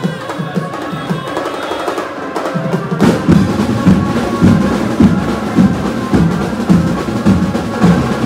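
Procession drums beating a steady rhythm, with much louder, heavier drumming coming in about three seconds in at roughly two beats a second.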